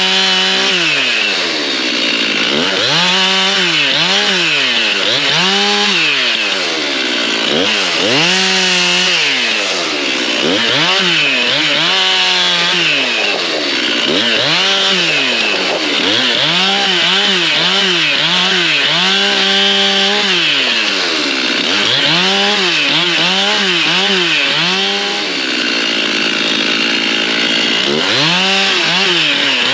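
Stihl MS 391 two-stroke chainsaw delimbing hardwood: the engine revs up to full throttle for each short cut and drops back toward idle between them, over and over.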